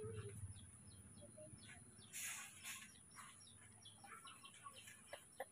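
Faint birds chirping: quick runs of short, high chirps over a quiet background, with a brief soft rustle about two seconds in.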